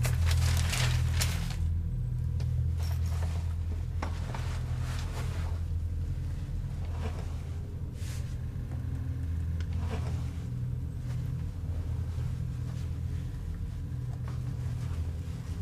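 A steady low rumbling drone, with scattered short clicks and rustles over it, the busiest in the first second or two.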